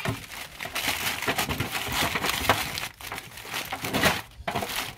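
Aluminium foil crinkling as hands fold and press it over a roast lamb leg in a disposable foil tray. It comes in irregular rustles, with short pauses about three seconds in and again near the end.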